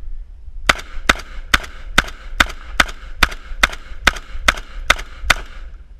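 Vepr 12 semi-automatic 12-gauge shotgun fired twelve times in rapid succession, about two and a half shots a second, as a full 12-round magazine is dumped with low-brass target loads. The gun cycles every round without a stoppage.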